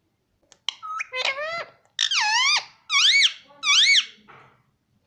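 Indian ringneck parrot vocalising in its high, shrill talking voice: a quick string of short notes, then three longer, alike calls, each dipping and then rising in pitch.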